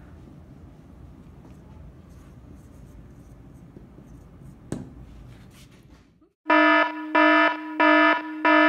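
Loud electronic alarm-like beeping starting about six and a half seconds in: a buzzy, harsh tone that pulses on and off about twice a second. Before it, only faint strokes of a marker on a whiteboard over a low room hum.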